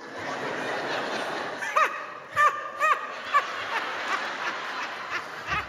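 Audience laughter, a dense crowd sound throughout, with a few short high-pitched laughs standing out in the middle.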